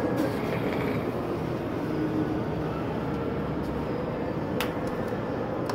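Steady background din of a large indoor amusement park, with one sharp click about four and a half seconds in as a putter taps a mini-golf ball off the tee.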